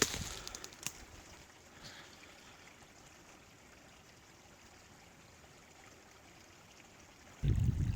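A few footsteps in the first second, then faint steady outdoor hiss like a trickle of water. A sudden low rumble comes near the end.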